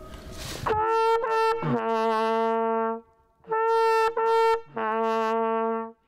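Hunting horn blown in a call of two like phrases. Each phrase is a few short notes that end on a long held note about an octave lower.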